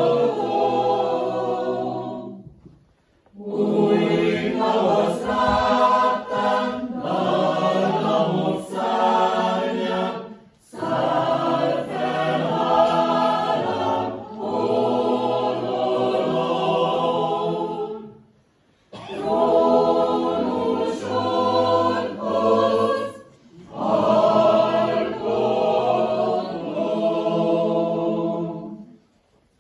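Mixed choir of men's and women's voices singing a cappella, in long phrases separated by brief pauses. The last phrase ends shortly before the end.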